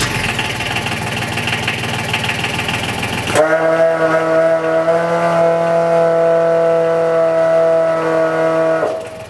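A fire engine's water pump unit running, with a steady engine noise. About three and a half seconds in, a strong steady pitched whine comes in sharply over it and holds level, then drops away near the end.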